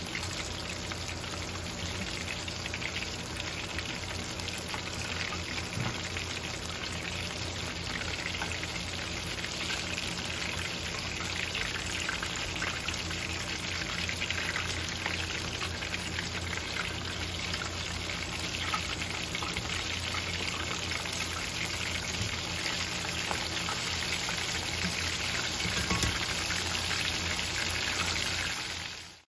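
Breaded chicken deep-frying in oil in a cast-iron skillet: a steady bubbling sizzle and crackle.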